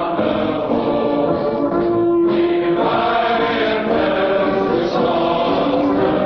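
A choir singing a slow national anthem in long held notes, with a short break between phrases about two seconds in.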